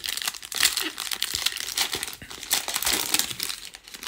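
Foil wrapper of a Panini Prizm Premier League trading-card pack crinkling and crackling as it is torn open by hand.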